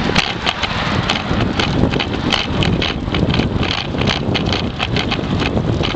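Dog scooter handlebar vibration shaking the handlebar-mounted camera while rolling along: a loud, steady noise with frequent irregular clicks and rattles.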